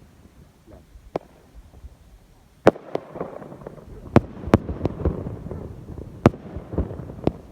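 Consumer fireworks going off: a small bang about a second in, a loud bang at about two and a half seconds, then a run of sharp bangs with crackling in between.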